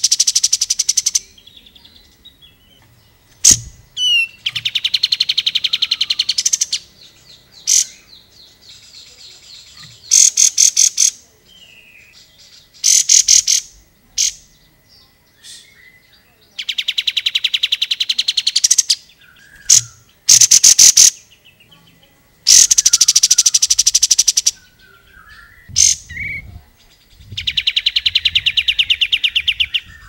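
Olive-winged bulbul (kapas tembak) singing in loud bursts of rapid, stuttering trill notes, each burst lasting one to two seconds and repeated about eight times, with softer short chirps between the bursts.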